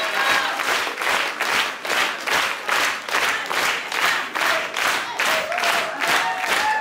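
Theatre applause, the crowd clapping together in a steady rhythm of about three claps a second. Faint music comes in near the end.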